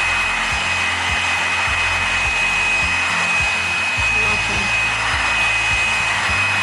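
Handheld hair dryer running on its high, cool setting: a steady rush of blown air with a thin, constant high whine.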